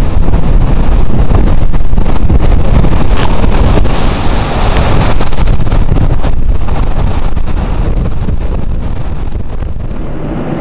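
Hurricane wind blasting the microphone with heavy surf rushing on the beach, a loud, continuous roar that slowly fades over the last few seconds.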